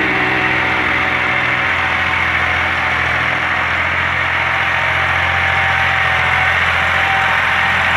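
Massey Ferguson 260 turbo tractor's diesel engine running steadily under load while it works the field with a rear-mounted tillage implement.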